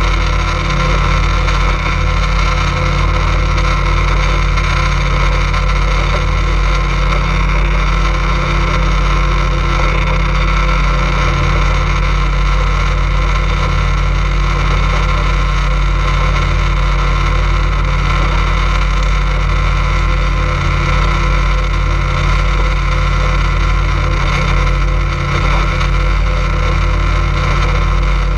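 A boat engine running at a steady speed, a constant drone that keeps the same pitch throughout.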